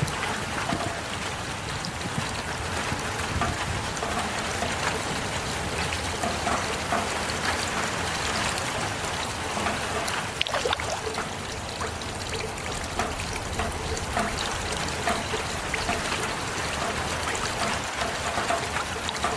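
Steady heavy rain, an even hiss with many individual drops pattering and trickling water, a cluster of sharper drop ticks about ten seconds in.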